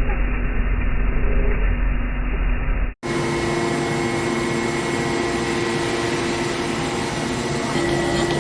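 Steady running noise of machine-shop machinery. About three seconds in it cuts abruptly from a muffled rumble to a clearer recording with a steady hum and a thin high tone.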